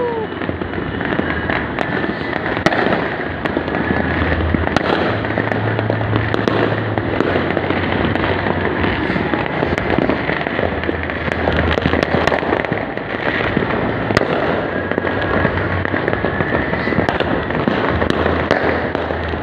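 Dense, continuous crackling and popping of many firecrackers and fireworks going off across a city, with sharper bangs scattered throughout.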